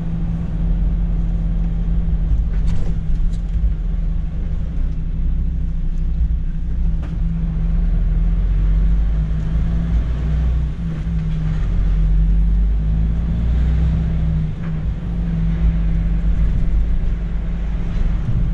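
MAN truck's diesel engine running while the lorry drives slowly, heard from inside the cab as a steady low drone.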